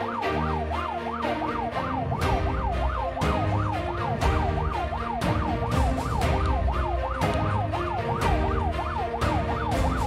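An ambulance siren in a fast yelp, its pitch sweeping up and down about three to four times a second, heard from inside the ambulance's cab. Underneath runs a steady beat of short strokes about twice a second.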